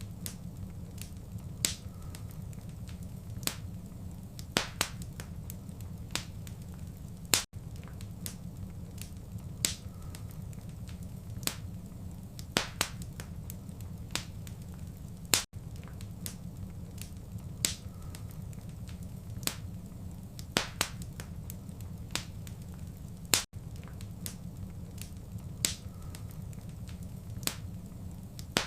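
Fireplace fire crackling: irregular sharp pops and snaps over a steady low rumble of burning. The sound dips out briefly about every eight seconds.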